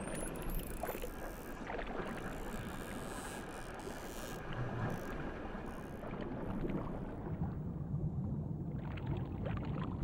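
Steady rushing water noise heard underwater, a low even wash with a few faint ticks.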